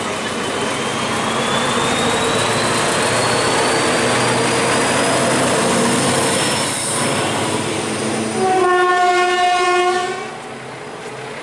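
SM42 diesel shunting locomotive running past close by with its train of double-deck coaches, engine and wheels on the rails, with a high whine rising slowly in pitch over the first six seconds. About eight and a half seconds in, the locomotive's horn sounds one blast of about a second and a half, the Rp1 "attention" warning signal.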